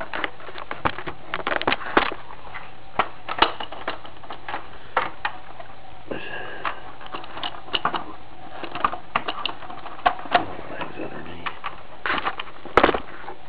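Irregular clicks and taps of a Godaikin Bio Dragon toy's parts being flipped, folded and snapped into place by hand while it is transformed.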